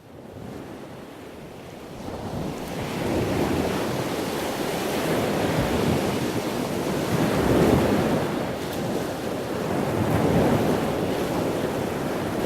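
Sea waves washing in, swelling and ebbing every few seconds, with wind noise on the microphone. The sound fades in at the start and grows louder about two seconds in.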